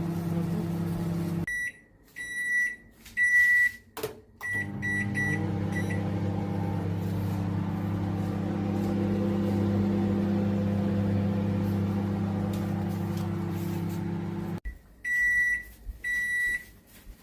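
Microwave oven running with a steady hum. It stops, a series of high beeps follows, and it starts again about four and a half seconds in. It runs for about ten seconds more, then cuts off and gives two longer beeps near the end.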